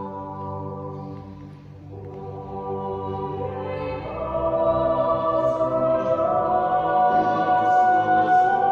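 Choir singing slow, held chords in a large church. The singing thins briefly about two seconds in, then swells and is louder from about four seconds on.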